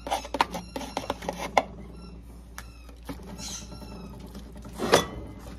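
A dog's squeaky toy squeaking several times in short, high, falling squeaks, the loudest one about five seconds in. Light clicks and rattles of handling at an aluminium foil pan come in the first second and a half.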